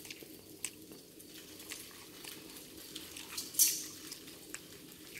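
Quiet kitchen sounds: scattered small clicks and taps, with one louder, sharper crack about three and a half seconds in, over a low steady hum.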